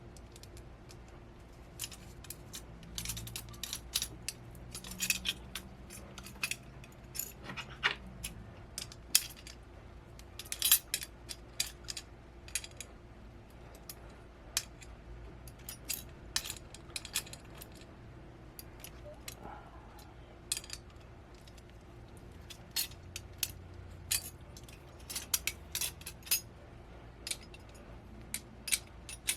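Small metal parts of a VESA adapter mount clinking and clicking as they are handled and fitted together: many light, irregular metallic taps in loose clusters.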